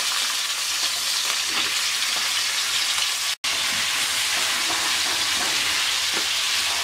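Turmeric-and-salt-rubbed rohu fish head pieces sizzling steadily as they fry in hot oil in a karai, the sound cutting out for an instant about halfway through.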